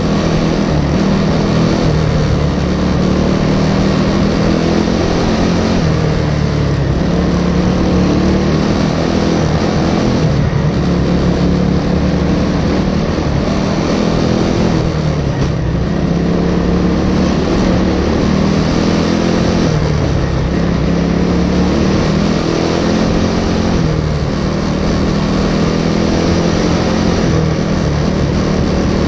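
Racing engine heard onboard at full race pace, running continuously, its pitch rising and falling over and over as it speeds up and eases off through the track.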